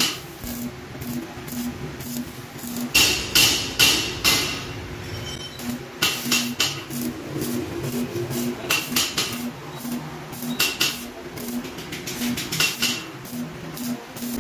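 Arc welding on a square-tube steel frame: short, sharp crackling bursts with a metallic ring, coming in several clusters, over background music with a steady beat.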